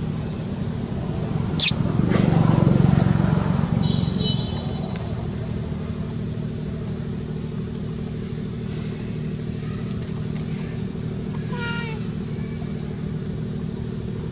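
A steady low engine hum, swelling louder for a couple of seconds just after a sharp click about two seconds in.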